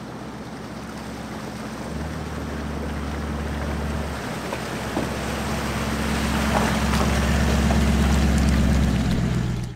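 Four-wheel-drive vehicle driving, its engine running with a low hum under rushing road and wind noise that grows steadily louder; the engine note shifts about two seconds in and again about four seconds in.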